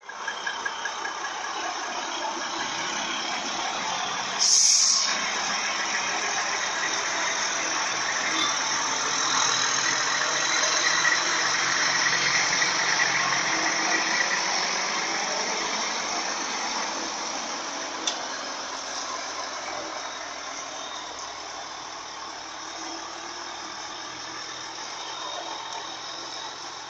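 Engine running through a straight-through ('diretão') open exhaust. There is a short, loud blast about four and a half seconds in, and the sound slowly fades over the last third.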